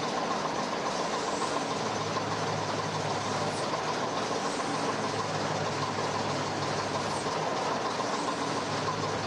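Diesel engine of a crane lorry running steadily, powering the hydraulic crane for a heavy lift, with a low hum and a steady whine over it.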